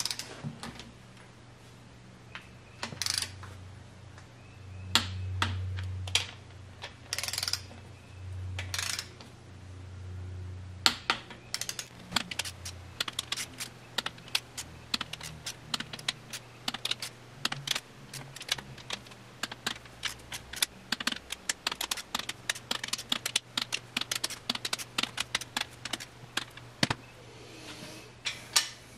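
Ratchet torque wrench clicking as main bearing cap bolts on a VW/Audi 1.8T block are tightened to 48 ft-lb, the first stage of a torque-plus-angle spec. A few separate clicks come first, then quick runs of ratchet ticks from about twelve seconds in.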